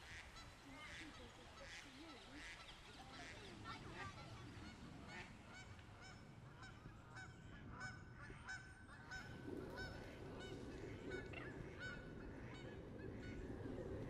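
Birds calling over and over in short, honking calls. About two-thirds of the way in, a low, steady rush of water comes in underneath.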